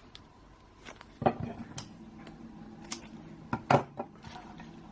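Small plastic drone propellers and their packets being handled on a table: a few sharp clicks and clacks, the loudest about a second in and near four seconds in, over a faint steady hum.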